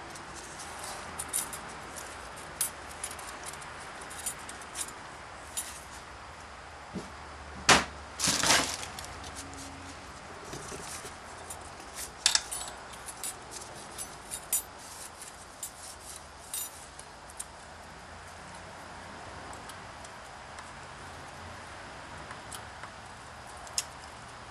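Scattered small metal clicks and clinks as a snap ring is worked into its groove inside an automatic transaxle's clutch drum with hand tools. The sharpest cluster of clinks comes about eight seconds in, with another around twelve seconds.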